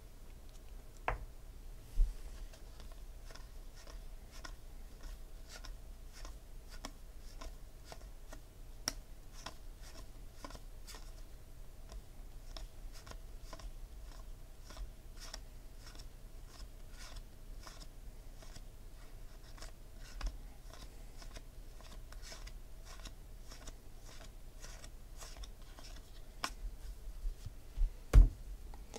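Topps Gold Label baseball trading cards being flicked and slid one at a time from one stack to another by hand, a short scratchy click about two times a second. A few louder knocks as stacks are tapped or set down on the table, the loudest near the end.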